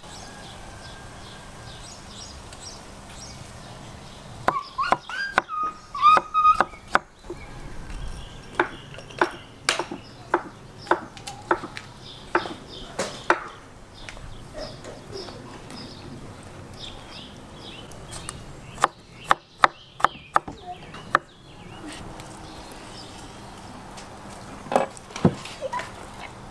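Metal skewers clicking and clinking as raw lamb is worked onto them, in irregular clusters of sharp clicks with a short metallic ring now and then.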